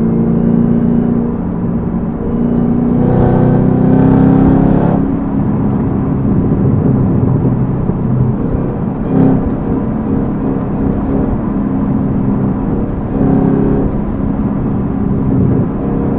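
Chevrolet Camaro ZL1's supercharged 6.2-litre V8, breathing through an aftermarket cold air intake and cat-back exhaust, running under light throttle while driving. It pulls harder from about three to five seconds in, with a short surge near the middle and another swell near the end.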